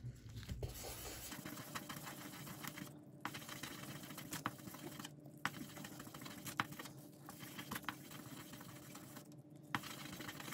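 Resin die being wet-sanded by hand on fine gray sanding paper: a soft, gritty scraping with many small clicks as the die's edges catch. The rubbing stops briefly every couple of seconds.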